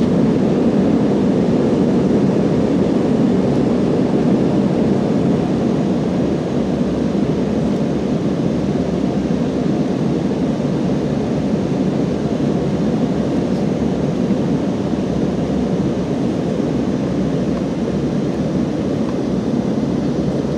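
Steady jet engine and airflow noise inside an airliner cabin, a deep even rumble that eases slightly a few seconds in.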